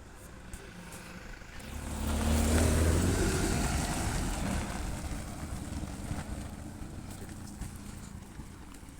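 A motor vehicle driving past: its engine and tyre noise swell to a peak a couple of seconds in, then fade away slowly as it moves off.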